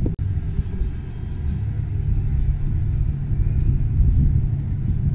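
A car engine running with a low, steady rumble; the sound drops out for an instant just after the start.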